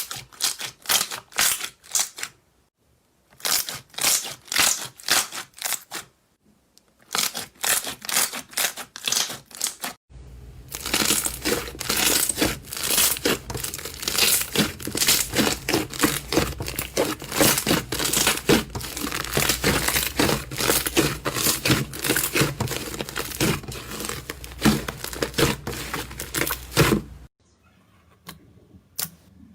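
Slime being squeezed and pressed by hand, giving runs of sharp clicks and crackles. About ten seconds in it turns into a dense, continuous crackling over a low hum, which stops suddenly near the end and gives way to fainter clicks.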